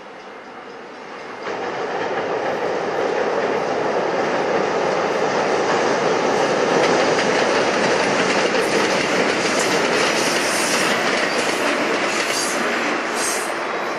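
Freight train crossing a steel truss bridge: a steady rumble and clatter of wheels on the rails, growing louder about a second and a half in, with short high screeches near the end.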